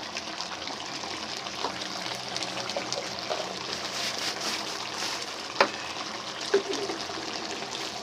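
Chicken karahi simmering and sizzling in the wok, its watery tomato-and-yogurt sauce bubbling steadily. Two sharp clicks about a second apart come past the middle.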